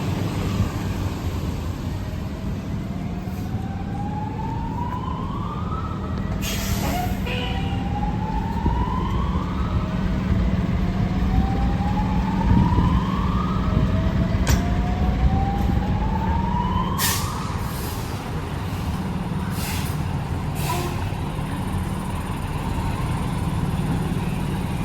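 A fire truck's siren sweeps up in pitch over about three seconds and then drops back, four times over. A heavy diesel engine runs steadily beneath it, and a few short, sharp hisses cut in now and then.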